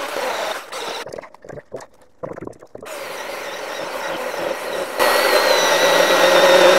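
Cordless Milwaukee M18 chainsaw running briefly, falling quiet for about two seconds, then spinning up and biting into a large log about five seconds in, cutting loudly with a steady motor whine under load. It is hard cutting through thick wood.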